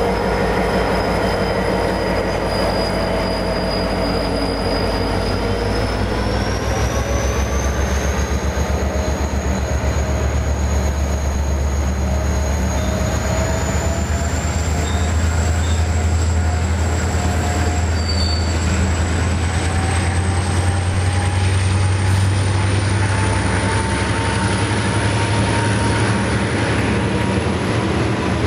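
V/Line A class diesel-electric locomotive running under power with a heavy, rhythmic engine throb that grows louder about six seconds in. A high whine climbs slowly and steadily in pitch as the train gathers speed.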